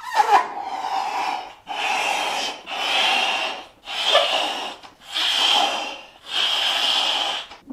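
A red rubber balloon being blown up by mouth: six long puffs of breath into the balloon, each about a second long, with short pauses for breath between them.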